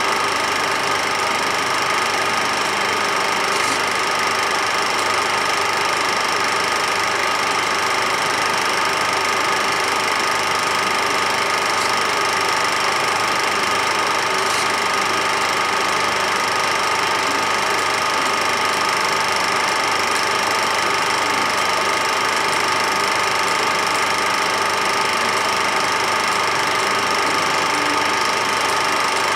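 Film projector running: a steady mechanical whirr with a few constant high tones, unchanging throughout.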